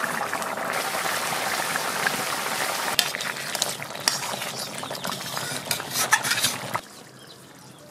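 Thick mutton curry sizzling in a steel kadai as a wooden spatula stirs it, with scattered scrapes and knocks of the spatula against the pan. The curry is cooked down and nearly done. The sound cuts off suddenly a little before the end.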